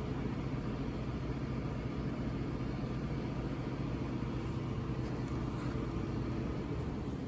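Steady low mechanical hum and rumble of background machinery, unchanging throughout.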